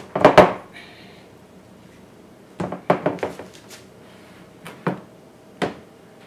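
Glass baking dishes knocking against the countertop and each other as they are picked up and shifted: a cluster of knocks at the start, another run of knocks about three seconds in, and two single knocks near the end.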